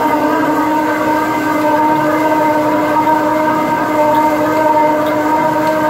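Double-cut knurl wheel rolling into the face of a large metal plate spinning in a Haas SL-40 CNC lathe, giving a loud, steady ringing drone of several held tones.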